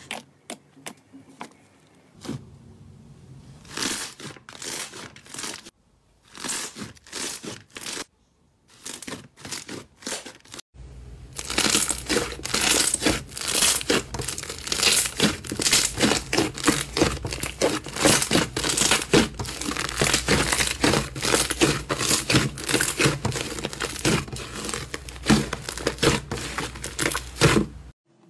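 Slime being poked and squeezed by hand, giving scattered sticky pops and crackles. From about eleven seconds in, a foam slime is kneaded, giving a dense, continuous crackling that stops just before the end.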